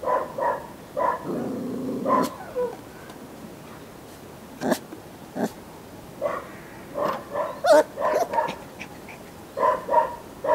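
Puppy yipping and whining in short, high cries that come in clusters: a few at the start, a longer run in the second half and more at the very end. Two sharp clicks fall in the pause between.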